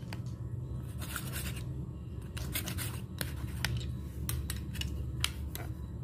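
Clear plastic ruler cutting through jelly slime and striking the marble floor beneath it: irregular sharp clicks and taps.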